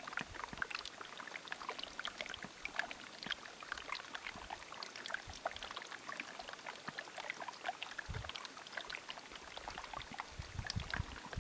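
Shallow stream running over rocks: a steady patter of small splashes and trickles. A few low thumps come in about eight seconds in and again near the end.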